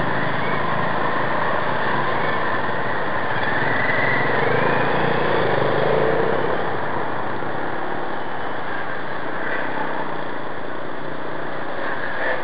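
Motorcycle engine running amid street traffic: a steady, noisy wash of engine and road sound.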